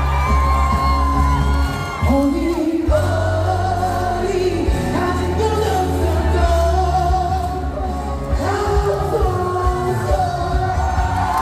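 Amplified live trot song: a singer's voice over a band backing with a heavy bass beat, with fans whooping and yelling along.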